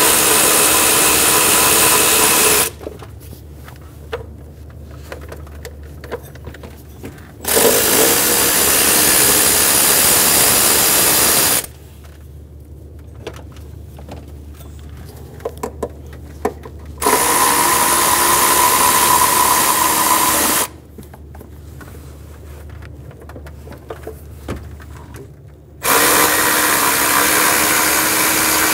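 Power ratchet spinning out 10 mm bolts, running four times for three to four seconds each, with small clicks of handling between the runs.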